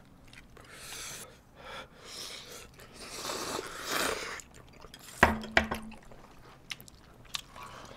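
People slurping and eating spicy noodles in sauce from small bowls: several noisy slurps and breaths, the loudest a long slurp about three to four seconds in. A few sharp clicks of chopsticks against the bowls come a little after five seconds.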